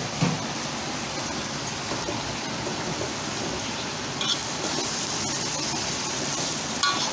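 Water spinach and dried anchovies frying in chili paste in a pan: a steady sizzling hiss, with a few brief clicks.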